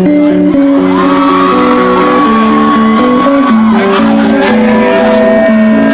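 Live rock band playing loudly: a guitar picking a quick riff of short repeated notes, with a long held high note over it starting about a second in, and some shouting.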